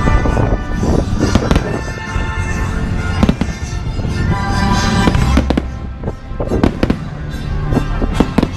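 Aerial fireworks bursting, with repeated sharp bangs at irregular intervals and a low rumble from the blasts. Music plays over loudspeakers alongside them, as at a fireworks show set to music.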